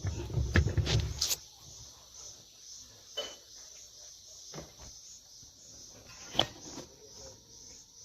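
Hands working on washing-machine spin-motor parts: a quick run of knocks and clicks, then a few scattered clicks, one sharper about six seconds in, over a steady high-pitched background hum.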